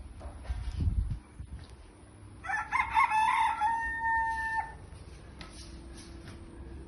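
A rooster crows once, a call of about two seconds that ends on a held note. A low thump comes about a second before it.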